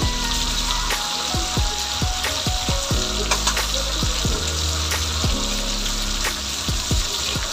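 Chopped garlic, onion and tomato sizzling steadily in hot oil in a steel wok, with a few sharp crackles.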